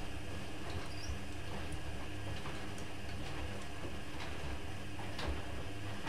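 Candy GrandÓ GO145 front-loading washing machine on a wash cycle: a steady motor hum as the drum turns slowly and wet laundry tumbles, with scattered light clicks and ticks.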